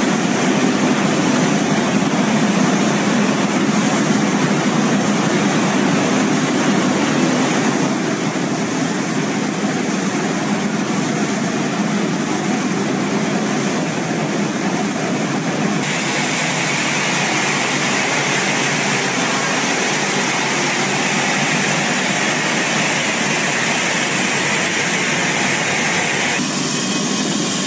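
Rice mill machinery running, with rice grains pouring from the machine's outlet spouts: a loud, steady mechanical noise. About halfway through it turns brighter and hissier, and it changes again near the end.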